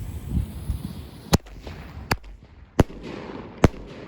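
Small consumer fireworks going off: four sharp bangs, spaced roughly three-quarters of a second apart.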